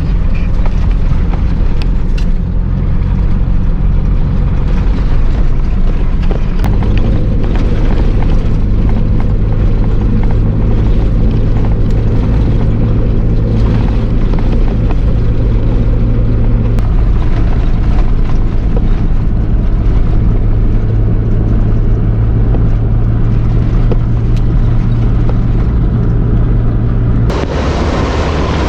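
4x4 engine pulling hard at steady revs while driving fast through thick sand, its note shifting once about a quarter of the way in. Near the end a broad rushing noise comes up over the engine.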